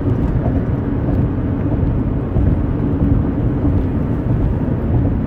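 Steady low rumble of a car driving at road speed, heard from inside the cabin: tyre and road noise.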